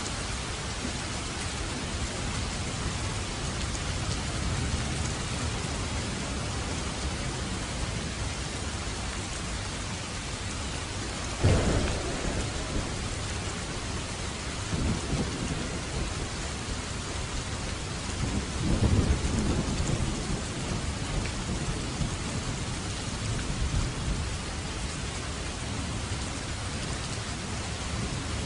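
Steady heavy rain with thunder: a sharp clap about a third of the way in, followed by low rolling rumbles.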